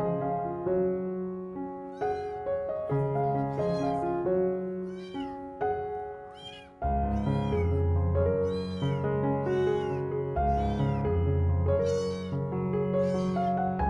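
A young kitten meowing over and over, a dozen or so short high cries that each rise and fall, starting about two seconds in, while it is towel-dried after a bath. Piano music plays underneath, with a deeper bass coming in about halfway.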